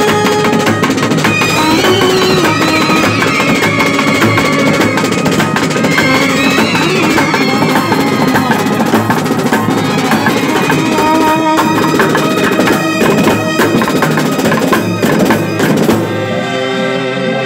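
A band playing loudly: reedy wind instruments carry a melody over dense, fast drumming. About sixteen seconds in the drumming stops and only the held wind notes carry on.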